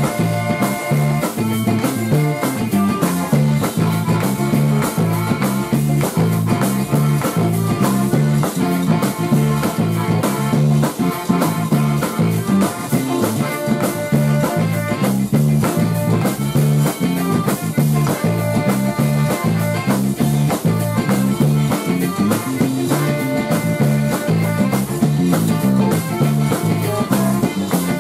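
Zydeco band playing live, an instrumental stretch: piano accordion lead over electric guitars and bass, with a rubboard keeping a fast, steady beat.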